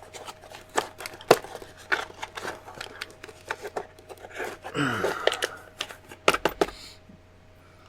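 Hands handling an airbrush kit's box and plastic-coated packaging insert: rapid clicks, taps and rustles, a scraping slide about halfway through, and a few sharp clicks near the end.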